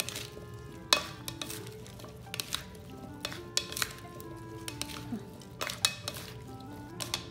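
A salad being tossed with two plastic salad servers in a bowl: irregular clacks and scrapes of the servers against the bowl and through the leaves, over soft background music.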